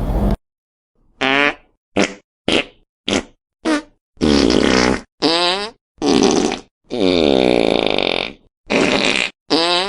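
A string of about eleven fart sounds with a wavering, sweeping pitch. The first five are short and come in quick succession; the later ones are longer, with one drawn out for over a second about seven seconds in. Each is cut off into dead silence before the next.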